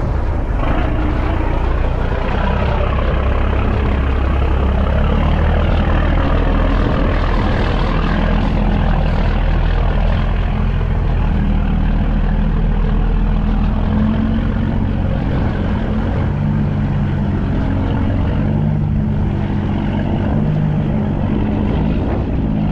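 Boat engine running steadily under way, a constant low drone whose pitch shifts slightly, over a steady rush of wind and water noise.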